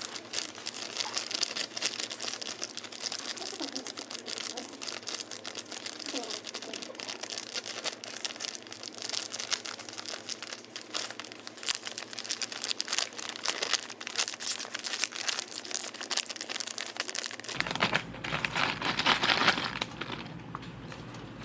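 Snack packaging crinkling and rustling, a dense run of rapid crackles as it is handled. About 17 seconds in the background changes and a brief rushing noise rises and fades.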